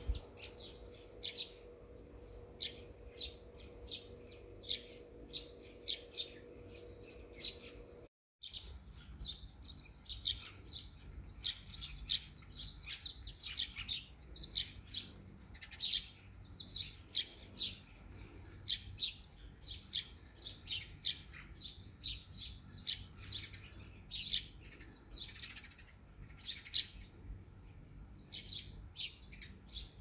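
Small birds chirping: many short, high, falling chirps in quick succession, with a brief dropout about eight seconds in.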